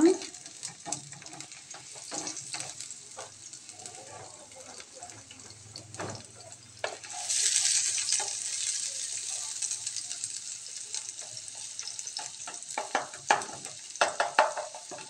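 Chopped red onions sizzling as they fry in oil in a nonstick pan, with a spatula scraping and tapping against the pan as they are stirred. The sizzle grows louder about seven seconds in, and a quick run of scrapes comes near the end.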